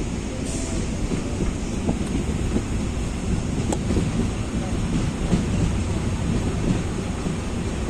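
Passenger train running, heard from on board: a steady rumble of wheels on rails, with small irregular knocks and one sharp click about halfway through.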